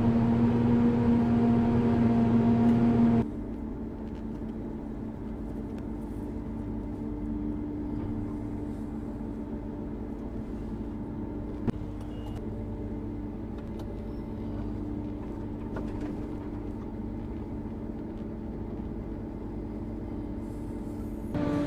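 A large combine harvester's engine and machinery running steadily with a droning hum. The sound drops suddenly to a lower level about three seconds in, has one brief click midway, and gets louder again right at the end.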